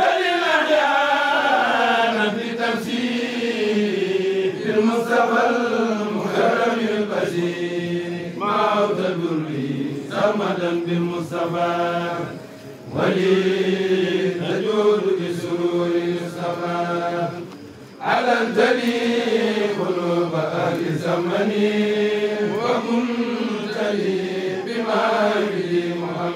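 A kourel, a group of men, chanting a Mouride khassida (a sung Arabic religious poem) in unison without instruments. The voices hold long, gliding melodic phrases, pausing briefly for breath about 13 and 18 seconds in.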